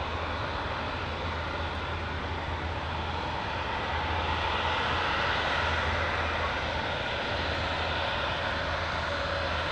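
Twin PD-14 turbofan engines of an MC-21-310 airliner running at taxi power: a steady jet hum with a faint whine, growing a little louder about four seconds in.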